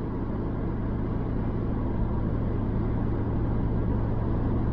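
Steady low drone of engine and tyre noise inside a small 4x4's cabin while it cruises through a road tunnel.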